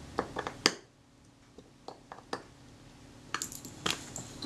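Light metallic clicks and taps in small scattered clusters as the small base-plate screws of a Kodak Retina IIIS camera body are tightened.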